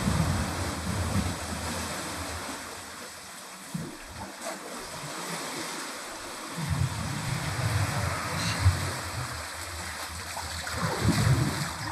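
Surf washing into a small sea cave: a steady rushing hiss of water with a deeper swell that dies down for a few seconds mid-way and builds again.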